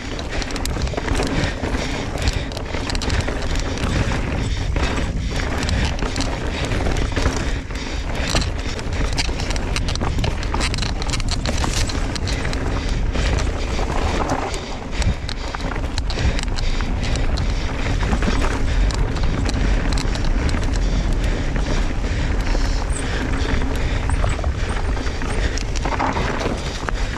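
Mountain bike being ridden fast down a dirt trail: steady wind rush on the mic with continual clatter and knocks from the bike over rough ground.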